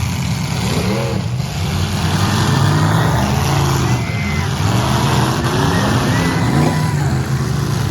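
Demolition derby car engines running and revving, their pitch rising and falling.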